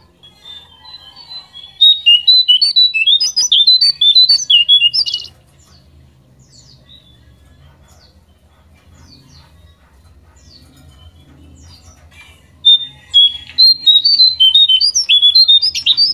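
Jongkangan bird singing: two bouts of rapid, high twittering song made of quick, varied notes, the first starting about two seconds in and lasting about three seconds, the second starting near the end. Between the bouts come faint short high calls, over a low hum.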